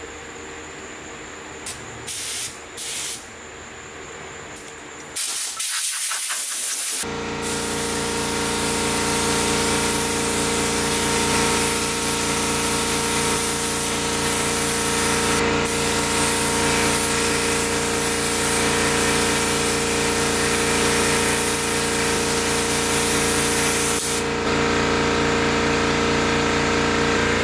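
Air spray gun with a 1.7 tip hissing as it sprays clear coat mixed with metal flake onto a motorcycle fuel tank, with a steady machine hum underneath. A few short bursts come in the first few seconds, then a long continuous spray that stops about 24 seconds in, leaving the hum.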